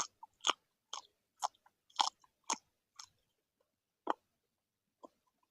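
Crunchy chewing up close, about two crunches a second, slowing to a couple of single crunches near the end.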